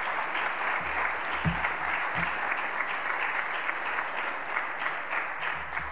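Crowd applauding: many hands clapping steadily, thinning slightly near the end.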